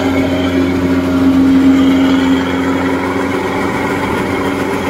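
Kubota DC-105X rice combine harvester running steadily under load close by: the diesel engine's even drone mixed with the rattle of the threshing machinery as it harvests.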